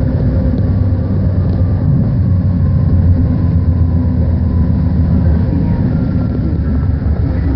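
Inside a BART train car at speed: a steady, loud, low rumble of the train running on the rails, with a faint thin whine over it.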